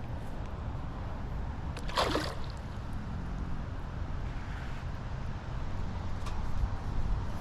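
Water sloshing against a canoe, over a steady low rumble, with a brief rush of noise about two seconds in.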